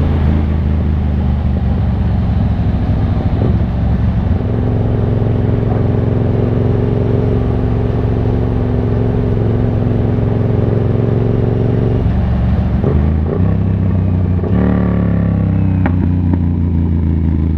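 Yamaha MT-07's parallel-twin engine running at steady cruising revs while riding. About twelve seconds in, the engine note changes several times, and the pitch shifts over the last few seconds.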